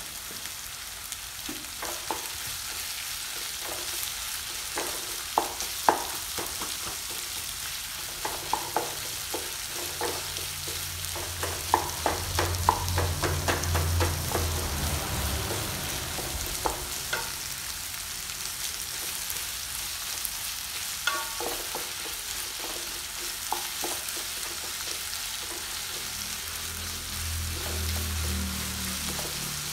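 Onions frying in hot oil in a pan with a steady sizzle, stirred with a spoon that clicks and scrapes against the pan many times. The onions are being sautéed with a little salt so they soften quickly.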